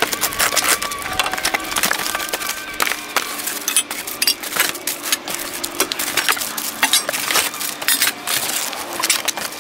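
A cardboard box being cut open and torn, then plastic-wrapped long-tube exhaust headers pulled out: dense crackling of cardboard and crinkling plastic, with light clinks of the metal pipes.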